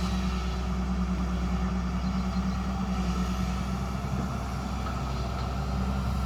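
Hyundai excavator's diesel engine running steadily with a constant low drone.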